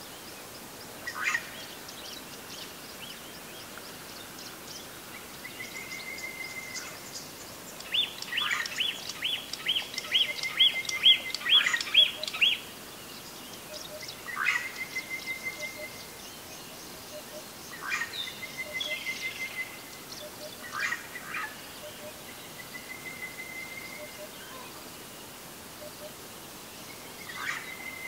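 Wild birds calling. The loudest part is a quick run of about ten sharp notes near the middle. Short level whistles and sharp falling calls repeat every few seconds, with faint high chirps behind them.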